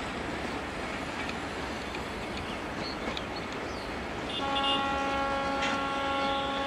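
Steady rumble of a train running on the rails, then about four seconds in a diesel locomotive's horn sounds one long, steady chord of several notes.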